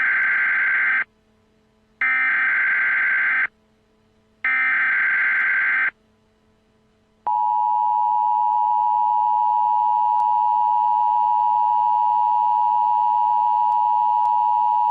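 Emergency Alert System tones: three screeching bursts of SAME digital header data, each about a second and a half long with short gaps between them. About seven seconds in, the steady two-tone EAS attention signal begins and holds.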